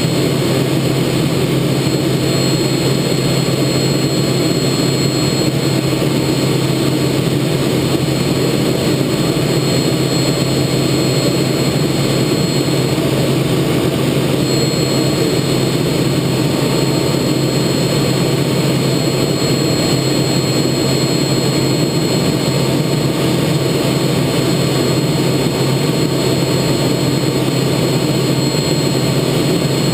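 Pratt & Whitney J52 turbojet of a TA-4J Skyhawk running steadily in flight, heard from inside the cockpit as an even, loud noise with a faint high whine over it.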